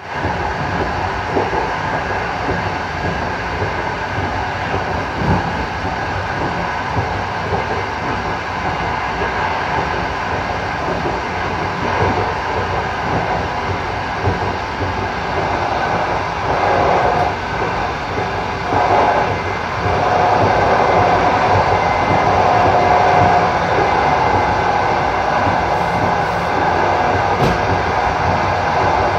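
Running noise inside a moving passenger train carriage: a steady rumble and rattle of the wheels on the track. About two-thirds of the way through, a steady whine comes in and the noise grows a little louder.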